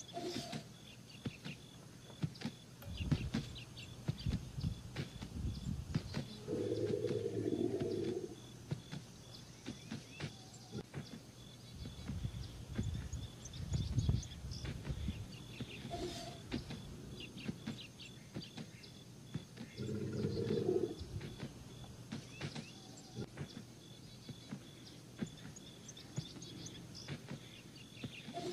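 Outdoor ambience with birds chirping, broken by low rumbles and by two louder sounds of a second or two each, about a third of the way in and again about two thirds in.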